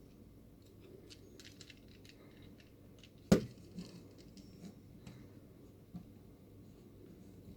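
Plastic parts of a transformable robot-dog alarm clock toy being handled and shifted into shape: small clicks and light taps, with one sharp knock a little over three seconds in.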